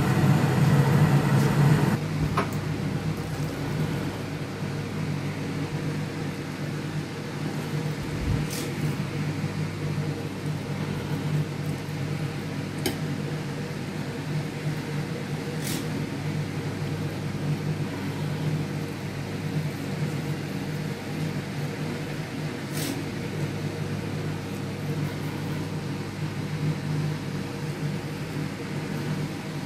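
Steady low machine hum, a little louder for the first two seconds, with a few faint sharp clicks.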